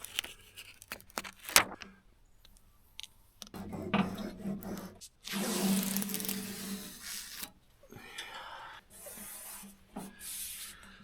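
Vinyl decal sheets and transfer tape being handled, peeled and rubbed down onto a surface: a few clicks and taps at first, then rough rustling and rubbing, loudest for a couple of seconds midway.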